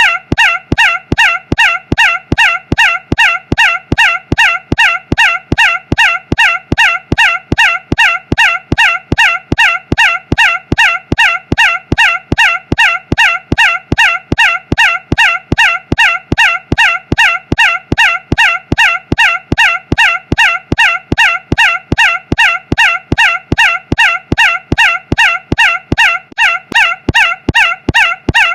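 A short, nasal, squawk-like tone repeated in an unchanging loop, about two and a half times a second.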